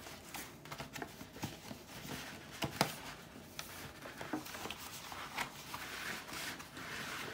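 Paper rustling and crackling as a long folded strip of glued book pages is handled and unfolded, with scattered small ticks and taps; the rustling grows thicker near the end as a fold is turned over.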